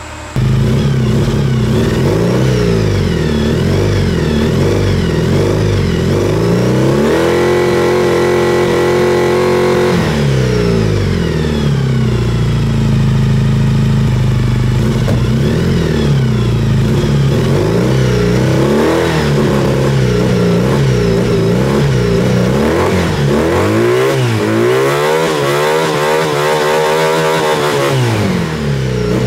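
Honda VF1000 V4 motorcycle engine in a buggy frame, running and being revved over and over. Its pitch climbs and falls, is held high for a few seconds, then comes in several quick blips near the end. The owner says it is not running its best and hears a hesitation when the throttle is hit.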